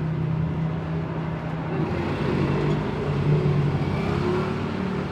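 Car engine running steadily, its pitch wavering a little after about two seconds.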